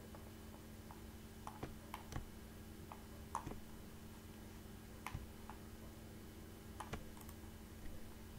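Scattered light clicks of a computer mouse and keys, about fifteen at uneven intervals, over a faint steady electrical hum.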